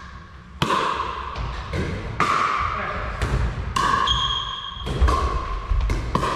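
Pickleball paddles striking a plastic pickleball in a rally, sharp pops about once a second, echoing in a large hall with a wooden floor. A short held high tone comes a little after four seconds.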